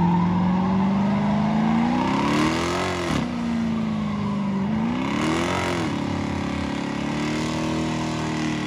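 Dodge Charger doing a burnout: the engine is held at high revs with the rear tyres spinning against the pavement. Twice the revs climb sharply and then drop back, about three and six seconds in.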